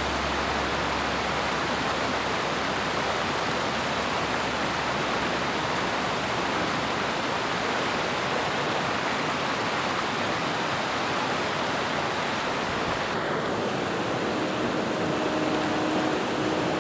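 Rushing river water: a steady, loud, even hiss of fast-flowing water.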